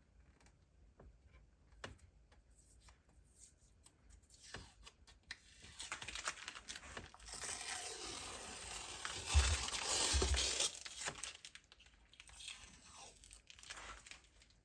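A rough tearing, crinkling noise that swells for about five seconds in the middle, with two dull low thumps near its loudest point, among scattered light clicks and handling noises.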